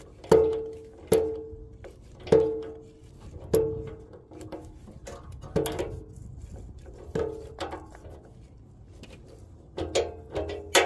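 Background music: a plucked-string instrument picking single notes that ring and fade, about one a second.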